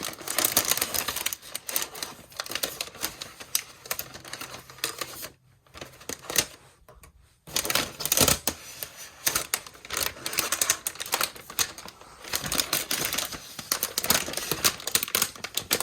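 Protective plastic film being peeled off the back of an iMac: dense, rapid crackling with sharp clicks, with a pause of about two seconds in the middle.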